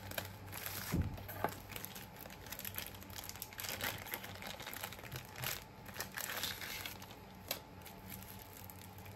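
Plastic wrapping around a pair of sunglasses crinkling and rustling as it is handled and unwrapped by hand, with a soft knock about a second in.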